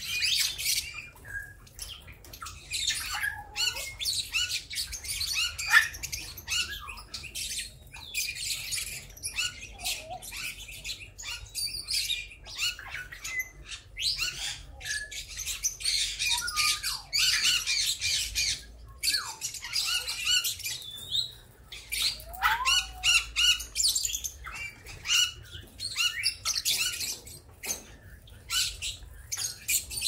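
A flock of caged lovebirds and other small parrots chattering nonstop: many overlapping shrill chirps and squawks, some sliding quickly up or down in pitch.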